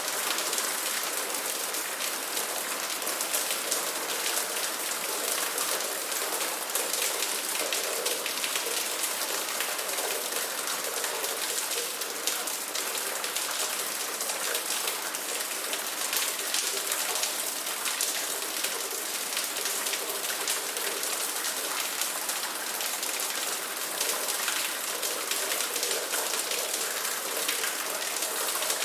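Steady rain falling, a constant hiss with many individual drops striking a surface.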